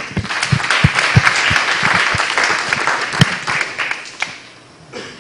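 Audience applauding, rising at once to a full round of clapping and dying away about four seconds in.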